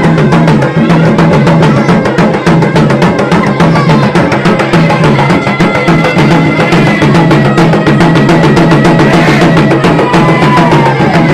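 Gendang perasuk, drums played for trance and spirit-possession rites, beaten in a fast, dense, unbroken rhythm. A thin high held tone sounds above the drumming from about halfway.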